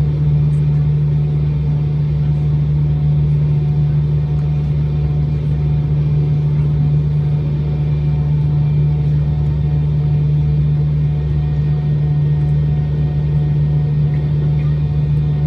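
A Delta MD-90's tail-mounted IAE V2500 turbofans at idle, heard inside the cabin as a steady drone with one strong low hum.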